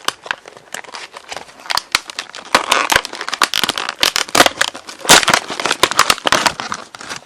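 Stiff plastic retail packaging of a new padlock crackling and crinkling as it is handled, with irregular sharp clicks and crackles, loudest in two stretches a few seconds in.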